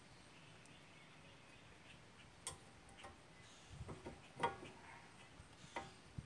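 A new front brake pad on a 2007 Dodge Magnum being fitted by hand into the caliper bracket against the rotor: a handful of light clicks and knocks, bunched around four seconds in, the loudest about four and a half seconds in.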